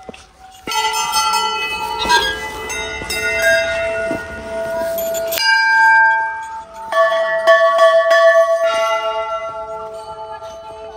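Hanging brass temple bells struck one after another, a new bell every second or so, each ringing on so that the tones overlap.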